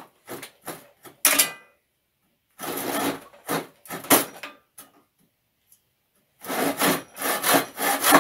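Hand panel saw cutting through a wooden board held in a vice, rasping back-and-forth strokes in three runs separated by short pauses.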